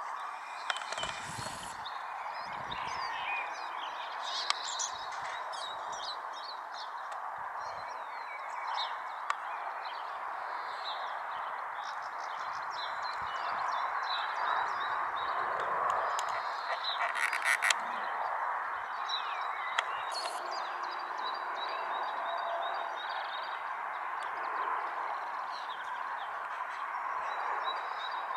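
Small birds chirping and twittering over a steady rushing noise, with a few sharp clicks.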